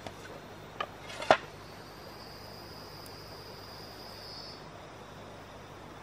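Two sharp knocks about a second in, a knife blade striking soil and roots while digging out a wild yam tuber. Then a faint, steady, high insect trill for a couple of seconds.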